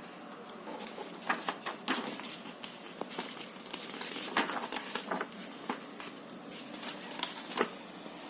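Irregular light clicks and taps of small hard objects being handled, scattered through the pause with no steady rhythm.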